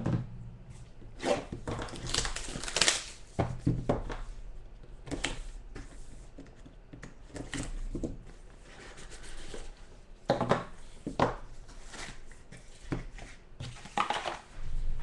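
Hands tearing open and handling the packaging of a trading-card box: irregular ripping, scraping and crinkling with a few light knocks.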